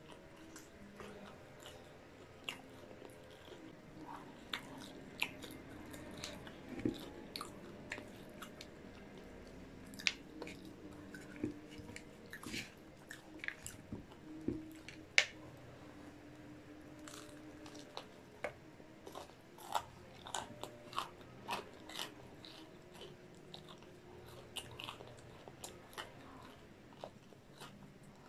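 Close-miked chewing and biting of a fried-chicken tortilla wrap, with irregular crisp crunches and wet mouth clicks throughout. The sharpest crunch comes about halfway.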